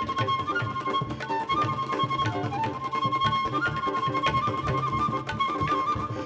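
Live Carnatic fusion ensemble music: a held melody line that steps and slides between notes over a regular beat of percussion strokes, in a piece set in a five-beat rhythmic grouping and built on five-note ragas.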